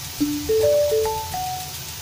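Background music: a light melody of single clear, bell-like notes that steps upward and then back down, repeating the same short phrase.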